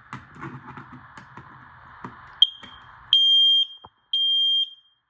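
Kidde KN-COPE-IC combination smoke and carbon monoxide alarm sounding under test. A short high chirp about two and a half seconds in is followed by loud, high-pitched beeps of about half a second each, one a second, in the temporal-three fire-alarm pattern. Before the alarm starts there are faint clicks and a low hiss.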